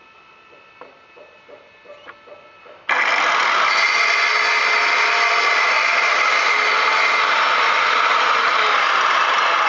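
A few light knocks, then about three seconds in a Skil 3160 miter saw fitted with a 7-inch diamond blade switches on abruptly and runs loud and steady as it cuts through stone veneer.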